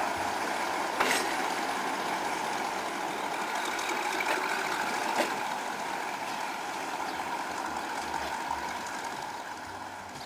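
SNCF X 3800 'Picasso' diesel railcar pulling away, its engine and running noise steady at first and then fading as it recedes, with a few sharp clicks along the way.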